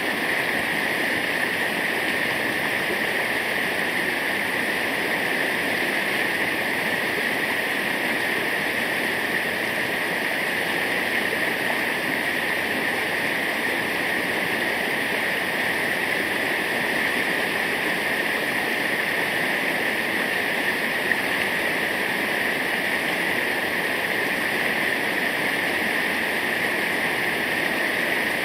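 Steady rush of a waterfall, falling water making an even, unbroken roar.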